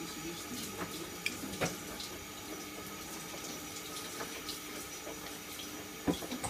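Water running from a kitchen tap into the sink as something is washed under it, with a few light knocks, the strongest near the end.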